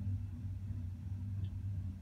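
Loaded coal hopper cars of a Norfolk Southern freight train rolling past, a steady low rumble.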